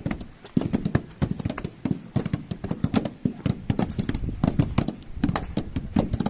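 Rapid, irregular hard knocks and clacks, several a second, like hard objects striking one another.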